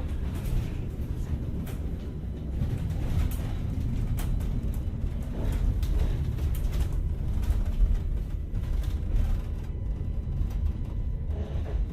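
Dubbed-in sound-effect track: a steady low rumble with scattered faint clicks and ticks.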